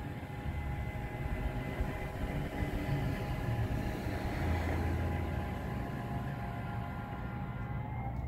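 Powered Access A Top truck cap on a Ford F-150 lowering shut: a steady electric motor whine over a low hum, which stops near the end as the cap closes.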